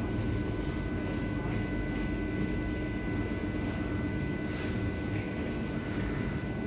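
Steady hum and drone inside a Berlin U-Bahn class H car, with constant thin electrical whine tones over a low rumble: the train's on-board equipment running while it stands at a red signal.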